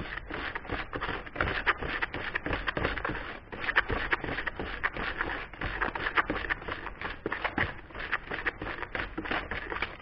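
Sand mixed with sodium silicate being stirred and scraped with a small hand tool in a plastic tub, breaking up the lumps: rapid, gritty scraping strokes with a short pause about three and a half seconds in.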